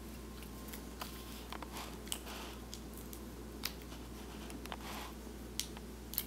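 Small plastic clicks and soft rustling as hands handle an iPhone USB power adapter and unwind the coiled Lightning charging cable, over a steady low hum.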